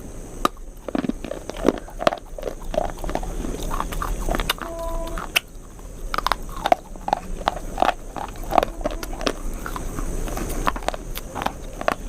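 Close-up mouth sounds of someone chewing food: irregular wet clicks and crunches. A brief steady tone sounds about five seconds in.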